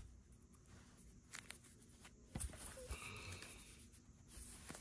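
Quiet handling noise: a few soft clicks and rustles as a smartphone and its cardboard box are moved about on bedding.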